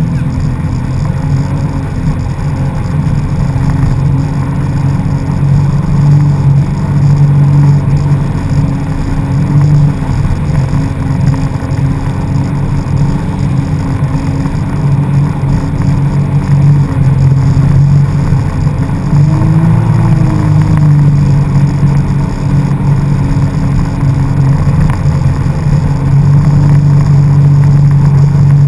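Jet ski engine running steadily under way, its pitch wavering with the throttle and rising briefly about twenty seconds in.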